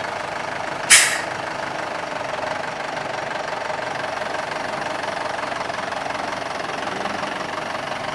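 Diesel vehicle engine running steadily, with one short, loud burst of noise about a second in.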